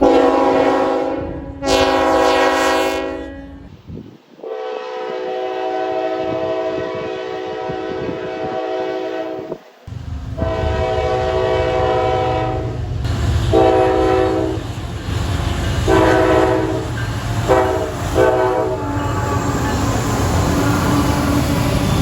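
Locomotive air horns sounding chords, in several spliced clips: two blasts at the start, then one long steady blast of about five seconds, then a run of blasts of varying length, some short, over the low rumble of the moving train.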